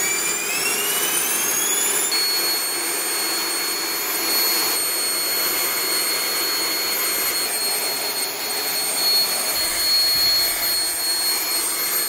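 Electric ducted fan spooling up with a whine that rises steeply over the first couple of seconds, then running steadily at high power with a shrill whine over a broad rush of air.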